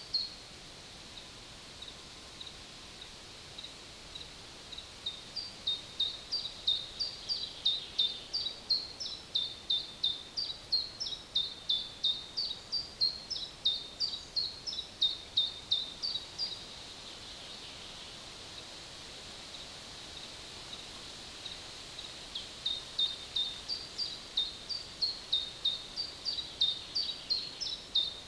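A songbird singing a long run of quick, high two-note phrases, about two a second. It breaks off for several seconds in the middle and starts again near the end, over a steady faint background hush.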